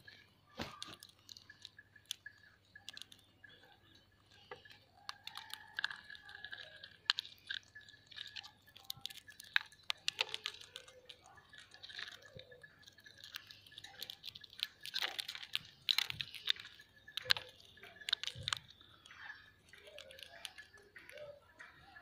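Indian ringneck parakeets cracking and crunching roasted chickpeas in their beaks: irregular sharp cracks and crunches, sometimes several close together.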